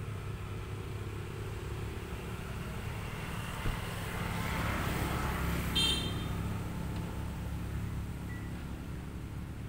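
Steady low rumble of a motor vehicle, swelling as it passes about halfway through. Just before the peak fades there is one brief high-pitched squeak.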